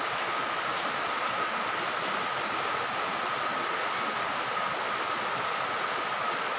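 Steady, even hiss of background noise with a faint, high, steady whine running through it.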